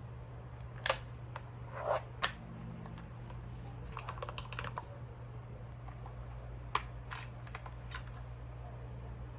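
Keys of a mechanical keyboard clacking: scattered single presses, with a short quick run of typing about four seconds in.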